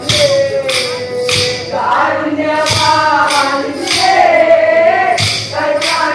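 Kolkali dancers' short wooden sticks clacking together in a steady rhythm, sharp hits about every two-thirds of a second, under a Mappila song being sung.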